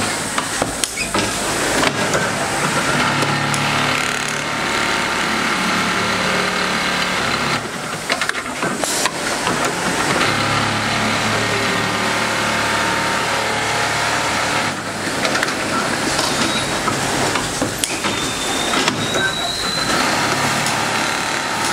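Supreme SP 3020TD MSN single-needle automatic pocket setter sewing machine running and stitching, a steady mechanical noise with a few sharp clicks.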